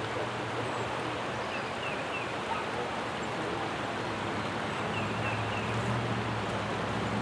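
River water rushing steadily over a shallow riffle, with a few faint high chirps.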